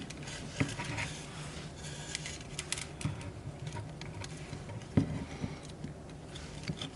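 Faint rustling and small scattered clicks of hands working thin wires through a tight hole in a plastic part, with a sharper tick about five seconds in.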